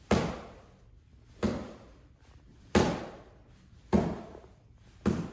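Boxing-gloved jabs smacking a pair of punch mitts, five times at about one every 1.2 seconds, each slap trailing off with a short echo.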